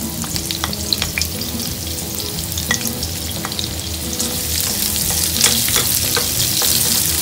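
Sliced onion sizzling in hot cooking oil in a nonstick wok, with scattered small crackles. The sizzle grows louder about four seconds in as a spatula stirs the onion around the pan.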